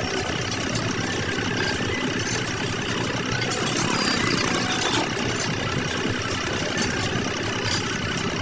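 A motor running steadily, with scattered light clicks over it.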